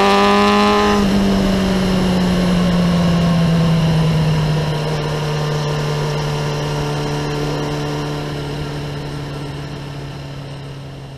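Kawasaki ZX-9R inline-four with a Remus exhaust, pulling under throttle until about a second in, then off the throttle. The engine note falls steadily as the bike slows and fades out near the end.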